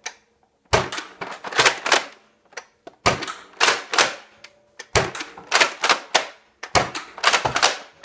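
Nerf Longshot CS-12's spring-powered bolt action being cycled and fired: a quick run of plastic clacks as the bolt is pulled back and pushed forward, then the release. It happens four times, about two seconds apart.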